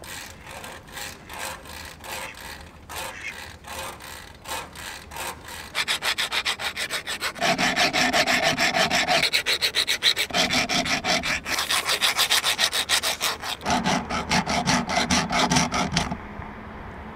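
Rapid, rhythmic scraping strokes, like sawing or rasping at wood, sparse at first and then faster and louder about six seconds in. A held pitched tone rides over the strokes in three stretches.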